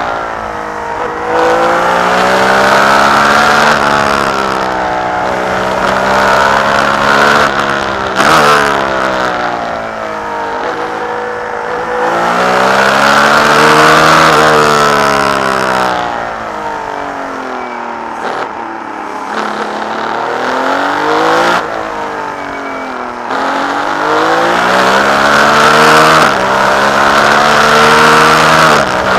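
Ferrari 312B's flat-12 racing engine at full song, heard from the cockpit, pulling hard through the gears. The pitch climbs and falls again and again as the car accelerates and brakes, with sudden drops at the gear changes, and it runs lower and quieter for a few seconds past the middle, in a slow corner.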